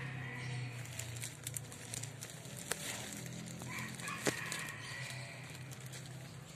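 A rooster crowing in the background: one crow trailing off at the start, another about four seconds in. Two sharp clicks are heard in between.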